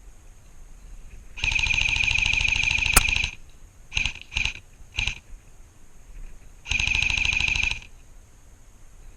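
Airsoft electric gun (AEG) firing on full auto, a fast buzzing rattle: a burst of about two seconds, three short bursts, then a burst of about a second. A sharp click sounds near the end of the first burst.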